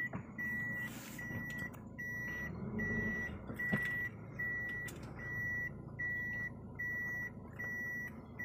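Car's reversing beeper sounding an evenly repeating high beep, about one and a half a second, while the car is in reverse. The engine runs low underneath, heard from inside the cabin.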